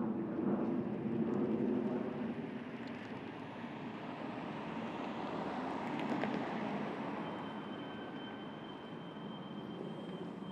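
Street ambience with traffic noise, loudest in the first two seconds and then easing off.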